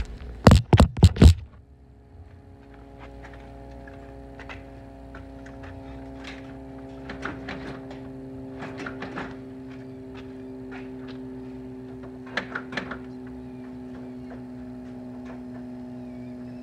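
A few loud knocks about a second in, then light, scattered clicks and taps of hands working at a Dodge Charger's front bumper, over a steady pitched hum.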